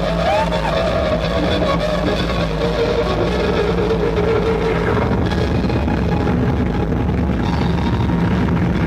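Loud noise-rock drone of an electric guitar run through an effects pedalboard: a dense, rumbling wall of sound with held tones on top and a short pitch swoop near the start.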